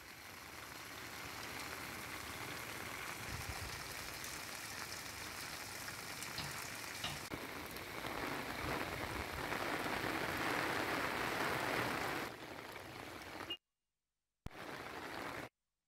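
Steady rain falling, an even hiss that grows louder about eight seconds in and eases again a few seconds later. It cuts out to silence twice briefly near the end.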